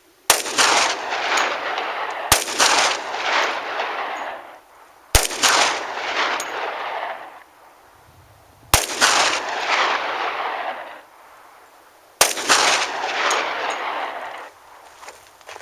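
Five shots from a Glock 20SF 10mm Auto pistol, fired a few seconds apart with 180 grain full metal jacket rounds. Each shot trails a long fading echo.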